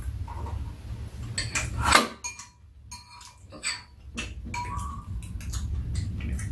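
Metal spoons clinking and scraping against ceramic bowls during a meal, with scattered light clicks, over a low steady hum.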